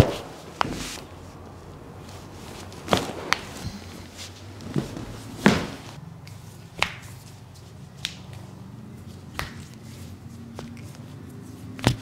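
A series of sharp joint cracks and pops, about ten of them spaced irregularly a second or so apart, from a chiropractic manipulation as the patient's body and arm are pulled and adjusted.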